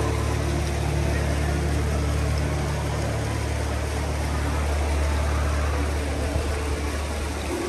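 Vehicle engine running with a steady low hum over a haze of street noise; the hum drops away about six seconds in.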